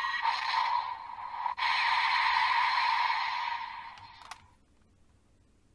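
Toy Kamen Rider Geats transformation belt playing electronic sound effects and music through its small built-in speaker, triggered by a Raise Buckle. The sound breaks off briefly about a second and a half in, then fades out around four seconds in, followed by a click.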